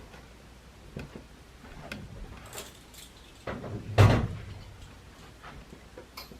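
Small clicks and knocks of wire and soldering tools being handled on a model railway baseboard, with one louder thump about four seconds in.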